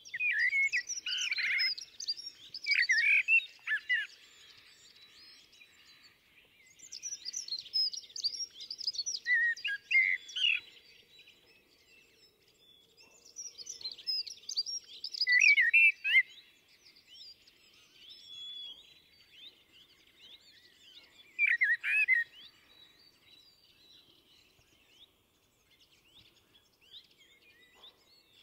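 Common blackbird singing: four song phrases separated by pauses of a few seconds.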